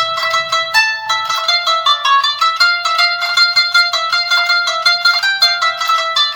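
Background music: a quick run of plucked-string notes.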